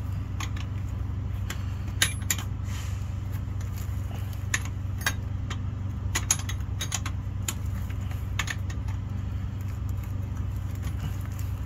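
Scattered metallic clinks as a wrench works the clamp nut of a truck's air brake chamber, over a steady low engine hum.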